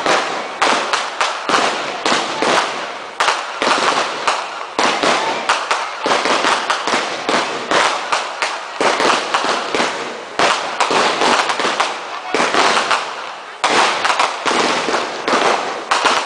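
Class 2 consumer fireworks going off in quick succession: a dense, unbroken barrage of crackling bangs, several a second.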